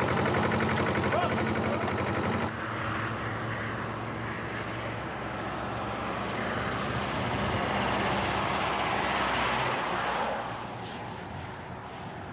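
A loader's engine running for about two seconds, then road noise on a motorway as a lorry towing a caravan approaches and passes. The noise swells, drops off about ten seconds in, and begins to rise again as the next car and caravan come up.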